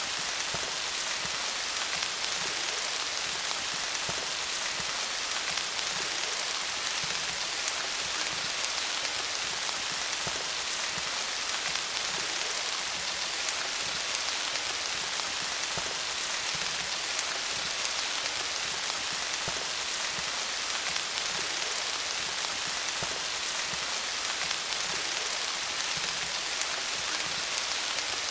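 Steady rain falling on leaves: an even hiss of many small drops pattering, with no change in strength.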